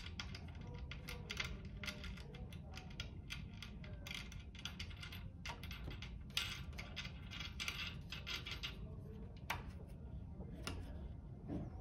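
Many light, irregular clicks and knocks of wooden dowel pegs being handled and set into the slotted plywood cross bar of a vertical warping mill, over a steady low rumble.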